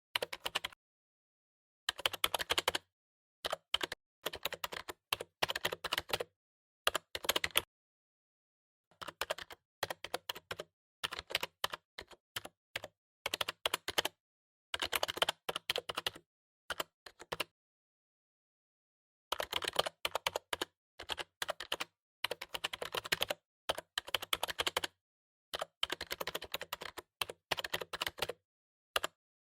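Computer keyboard being typed on in quick runs of key clicks, each run lasting about a second, separated by short pauses, with a longer pause about two-thirds of the way through.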